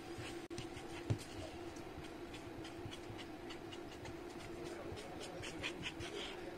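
Marker pen scratching quick short strokes on paper, drawing a dashed cutting line, over a steady low background hum.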